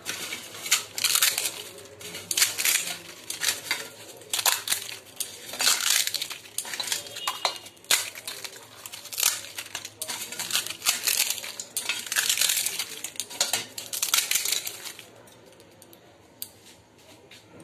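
Crisp fried fuchka (pani puri) shells being crushed by hand into a steel mixing bowl: dense crackling and crunching with clinks against the bowl, dying down about fifteen seconds in.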